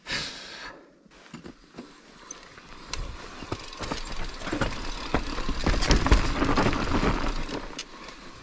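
Mountain bike rolling down a loamy dirt trail: tyre noise on the dirt, with the chain and frame rattling and clicking. It grows louder from about two seconds in and eases off near the end.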